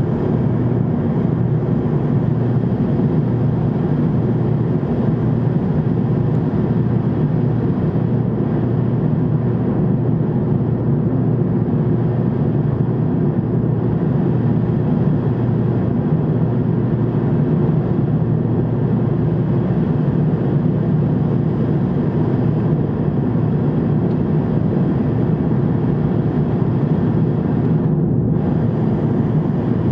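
Steady low drone of a jet airliner in flight, heard inside the cabin: engine and airflow noise.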